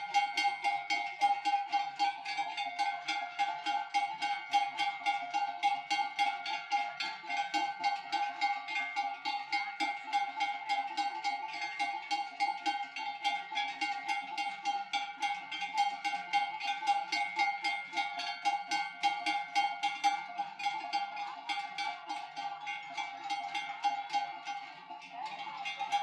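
Large cowbells hung on walking cows, clanging over and over in time with their steps, with one strong ringing pitch sounding throughout.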